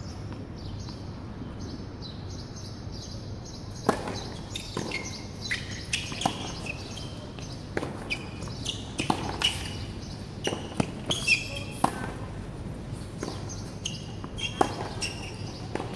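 Tennis point on a hard court: a serve about four seconds in, then a rally of racket hits and ball bounces, sharp cracks every half second to second and a half.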